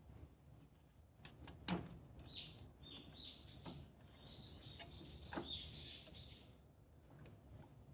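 Faint bird song: a run of short chirps for about four seconds, stepping higher in the second half. A few sharp clicks or knocks come through it, the loudest about two seconds in.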